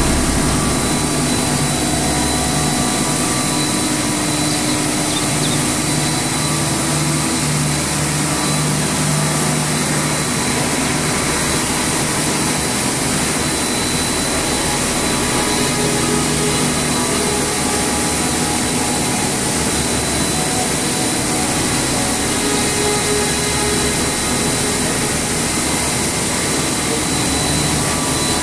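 Double-stage plastic film pelletizing line running: a steady machine noise with a thin high whine over a low hum.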